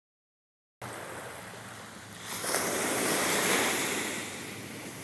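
Ocean surf washing up the shore: steady wash of waves, with one wave surging up loudly about two seconds in and fading again about four seconds in. The first second is silent.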